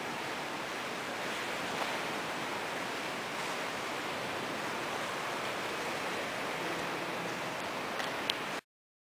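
Steady, even hiss of a large indoor hall's room ambience, with a couple of faint clicks; it cuts off abruptly near the end.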